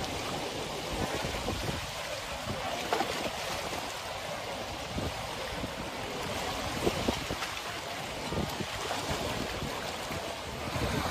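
Small sea waves lapping and splashing at the shore: a steady wash broken by scattered small splashes.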